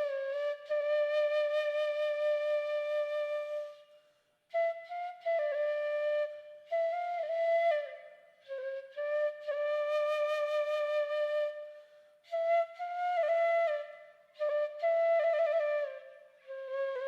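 Background music: a solo flute melody of long held notes with brief ornamented turns, in phrases with short pauses between them.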